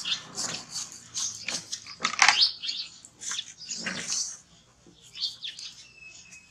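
Large kitchen knife slicing the rind off a fresh pineapple in a quick run of short, crisp cuts, mixed with the rustle of a plastic bag as a baby monkey paws at the pineapple pieces on it.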